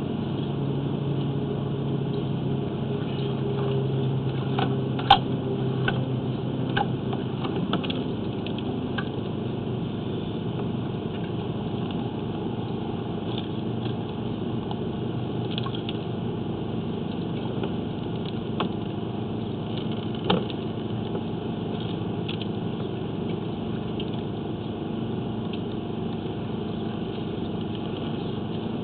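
An engine running steadily at idle, with a few sharp clicks or knocks, the loudest about five seconds in and again about twenty seconds in.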